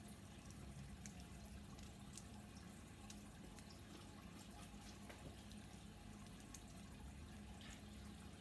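Near silence: a low steady room hum with a few faint, scattered plastic clicks from a Bakugan toy being handled and folded toward its ball form.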